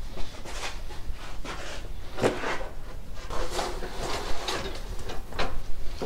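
Draw knife scraping and peeling bark off a live-edge slab: a string of short, irregular rasping strokes as the blade works under the bark.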